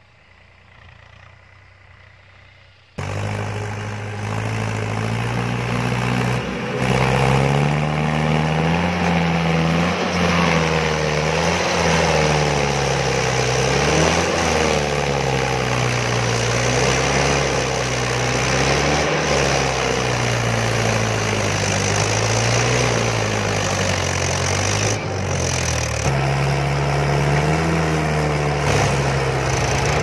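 Mahindra 575 DI tractor's four-cylinder diesel engine labouring under the load of an overloaded soil trailer on a slope, its pitch rising and falling over and over. Faint for the first three seconds, then loud and close.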